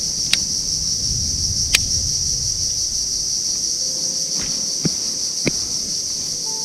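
Insects buzzing steadily at a high pitch, over a low rumble of wind or water, with a few sharp clicks or knocks.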